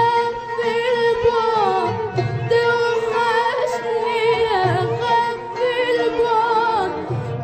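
A female vocalist sings an ornamented melodic line with vibrato in classical Egyptian song style, accompanied by an Arabic orchestra.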